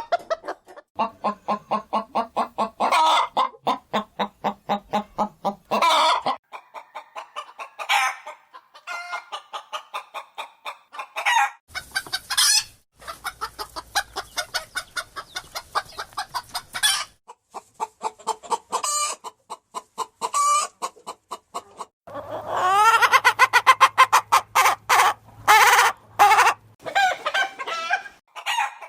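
Chickens clucking in fast runs of short calls, broken every few seconds by longer, louder calls; several different recordings follow one another.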